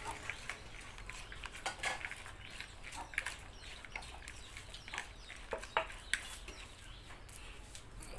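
A hand tossing a wet salad of shredded grapefruit and raw shrimp in a plastic bowl: irregular soft squishes and light clicks.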